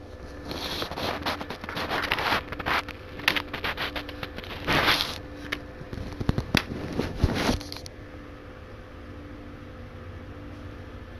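Plastic DVD cases and packaging being handled: crackling, scraping and sharp clicks for about seven seconds, with a few louder knocks near the end. After that only a faint steady hum remains.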